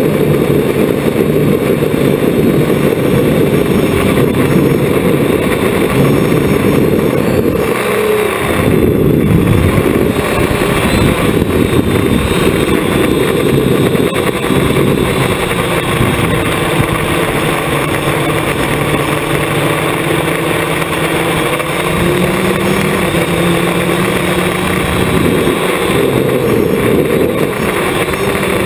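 Hexacopter's six electric motors and propellers buzzing in flight, heard from the onboard camera, the pitch shifting up and down with throttle. About eight seconds in, the sound briefly drops away and then comes back.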